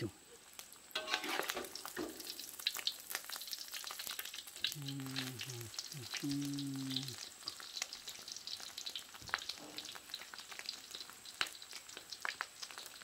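Egg frying in oil in a wok, crackling and spitting steadily, with a metal spatula stirring and scraping it around the middle. A short low hum sounds twice about five and six seconds in.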